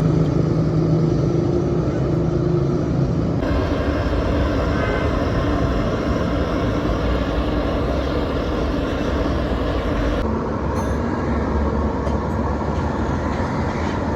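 Steady running engine noise, with a low hum through the first three seconds; the sound changes abruptly about three and a half and ten seconds in.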